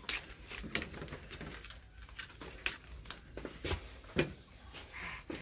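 Banana leaves crackling and rustling as hands fold and press them around a chicken on a metal tray: a string of short, sharp crackles at irregular intervals.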